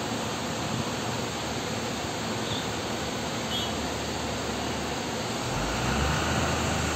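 Steady hissing background noise, with a low rumble coming in about five and a half seconds in.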